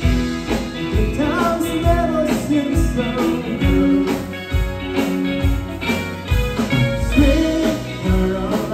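Four-piece live band playing a song with a steady drum beat: a voice sings over electric guitar, electric bass and keyboard.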